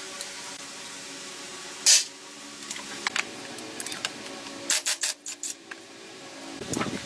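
Hand-tool and handling noises: a short hiss about two seconds in, then a run of sharp clicks and taps from about five seconds in.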